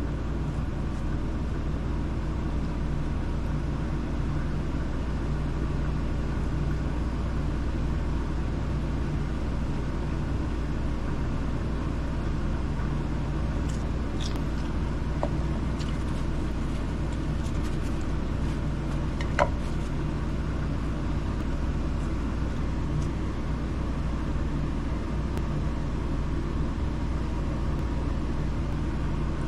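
Steady low rumbling hum, with a few faint clicks and one sharper click about twenty seconds in.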